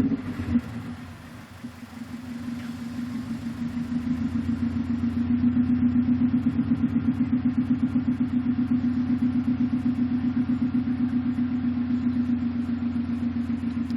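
2005 Subaru WRX STI's turbocharged 2.5-litre flat-four idling roughly after a cold start. A brief throttle blip comes just after the start, the sound drops away for a second or so, then builds back to a steady, evenly pulsing idle. A scan showed the engine running rich, which the owner puts down to a vacuum leak after fitting an air-oil separator.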